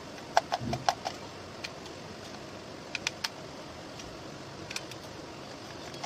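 Small screwdriver clicking against the screws and plastic housing of a Bluetooth speaker as its internal screws are undone. A quick run of light clicks comes about half a second in, then scattered single clicks, over a steady low hiss.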